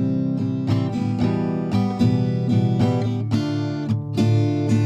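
Background music: acoustic guitar played in a steady series of plucked and strummed notes.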